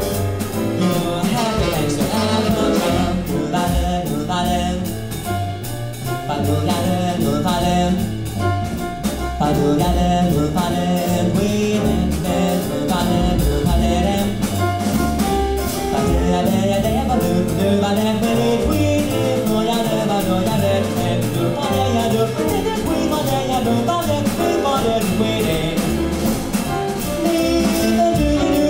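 Live jazz combo playing: a male singer into a handheld microphone over upright double bass and drum kit with cymbals, with saxophone.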